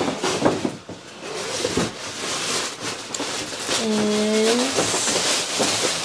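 Stiff paper shopping bag and tissue paper rustling and crinkling as hands rummage inside the bag, with a brief hummed 'mm' about four seconds in.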